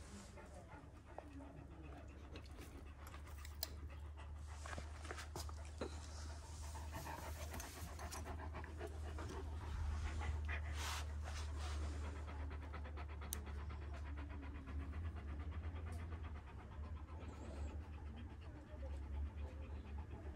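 A young Kangal shepherd dog panting close by, over a steady low hum.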